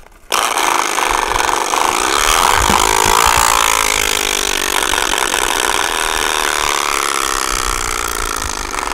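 Homemade bicycle 'exhaust' made from a plastic Rồng Đỏ energy-drink bottle with a brake cable fed into it, rattled by the rear wheel as the pedal is cranked by hand, giving a loud, rapid buzzing rattle meant to imitate a motorbike's loud exhaust. It starts suddenly and sinks a little in pitch as the wheel slows.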